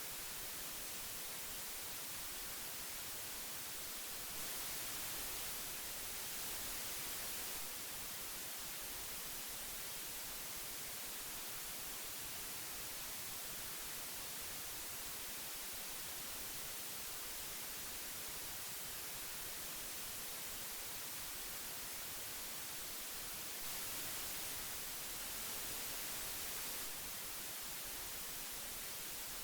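Steady hiss of old magnetic tape, an even noise weighted toward the treble. It swells slightly twice, for about three seconds each time.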